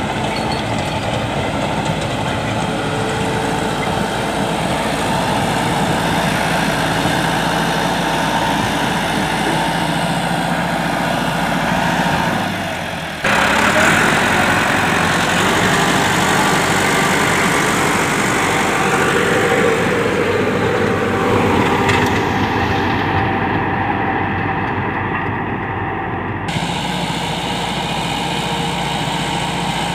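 Massey Ferguson 385 tractor's diesel engine running steadily while it drives a 60-blade rotavator tilling the soil. The sound breaks off and resumes abruptly about halfway through, and changes sharply again near the end.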